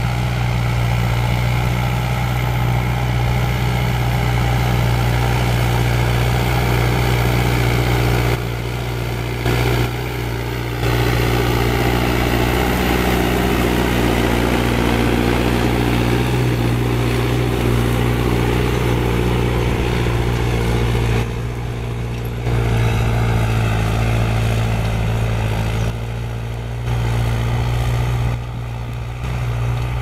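Farm tractor's diesel engine running steadily under load while pulling a disc harrow through the soil, with a few abrupt changes in level.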